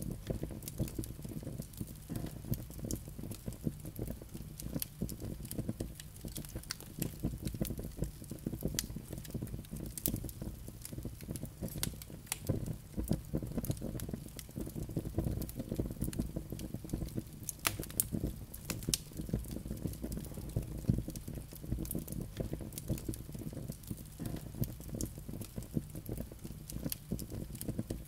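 Wood logs burning in a fireplace: a low, steady rumble of flames with frequent, irregular sharp crackles and pops.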